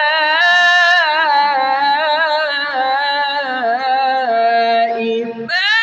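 A man reciting the Quran in melodic tajwid style, holding one long drawn-out phrase with a wavering, ornamented pitch line. Near the end his voice drops away briefly, then a new phrase begins on a higher pitch.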